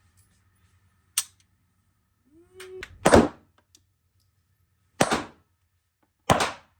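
Handgun shots at a shooting range: three loud shots, the first about three seconds in and the next two a second or so apart, each with a short echo. A fainter sharp crack comes about a second in.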